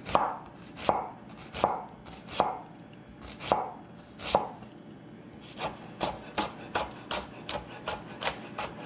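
Chef's knife slicing a red onion thin on a wooden cutting board, each cut ending in a knock on the board. The strokes come spaced apart at first, then quicker, about three a second from around halfway.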